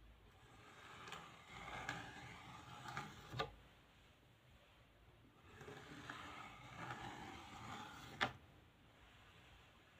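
A plastic comb dragged across a paint-coated plywood board in two scraping strokes of two to three seconds each, drawing lines in the paint; each stroke ends in a sharp click.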